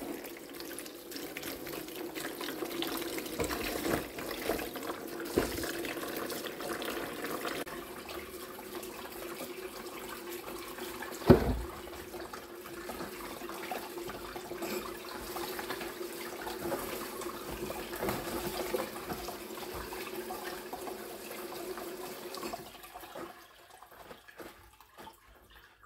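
Kitchen tap running water over vegetables in a mesh colander in the sink, splashing as a cucumber and cabbage leaves are rinsed and turned by hand. A single loud knock comes about eleven seconds in, and the water shuts off near the end.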